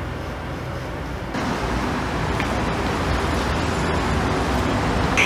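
Steady low hum inside an elevator car, then, a little over a second in, a louder steady rumble of traffic and ambient noise in an underground parking garage.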